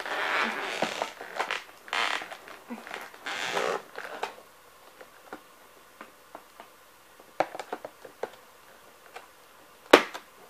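Plastic and cardboard toy packaging rustling and crinkling in several bursts as it is handled, then a few sharp clicks, with a louder click near the end.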